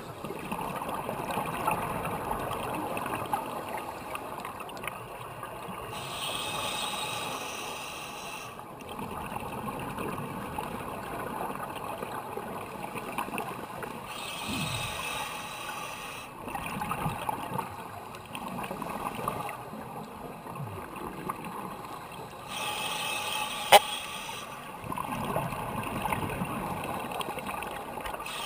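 Scuba regulator breathing, muffled by the GoPro's underwater housing: the hiss of an inhalation recurs three times, about every 8 seconds, and between breaths exhaled bubbles gurgle. A single sharp click sounds near the end.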